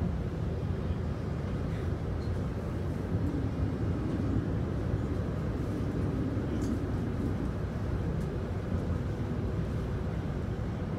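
A TTC UTDC CLRV streetcar running along the line, heard from inside the car: a steady low rumble.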